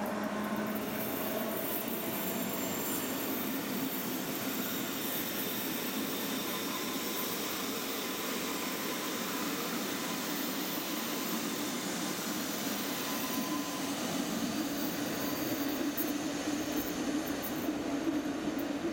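Rhaetian Railway electric train of red coaches rolling past on a curve, a steady rumble and rush of wheels on the metre-gauge rails. The electric drive's rising whine dies away about half a second in, and the low wheel rumble grows stronger near the end.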